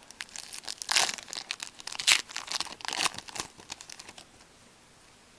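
Foil trading-card pack being torn open and crinkled by hand, a dense crackling that stops about four seconds in.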